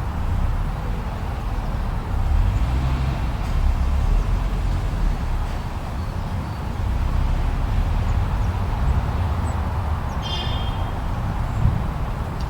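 Snowstorm wind blowing in a steady low rumble that swells and eases in gusts, with a brief high call about ten seconds in.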